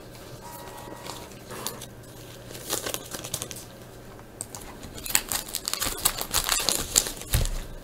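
Crinkling of a trading-card pack's shiny wrapper as it is picked up and handled, starting about five seconds in as a run of short crackles.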